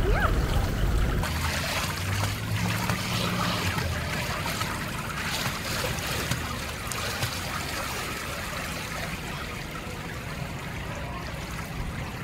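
Pool water splashing and lapping as a child swims along the edge of the pool, a steady wash of water sound.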